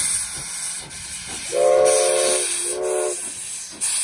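Steam locomotive whistle sounding a long blast and then a shorter one, over the steady hiss of steam venting from the engine's open cylinder cocks.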